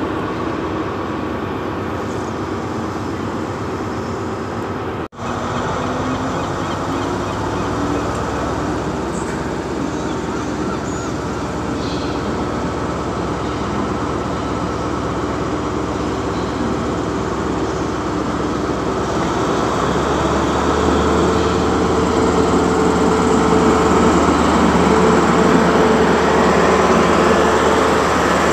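Class 43 HST power car diesel engines running at a station platform. There is a brief dropout about five seconds in, and from about 19 seconds the engine sound grows louder as the power car and its coaches move past.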